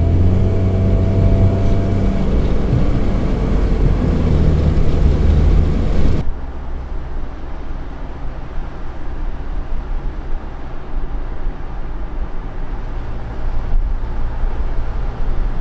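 Car running down the road, heard from inside the cabin: engine hum and road noise. About six seconds in it drops suddenly to a quieter, lower rumble.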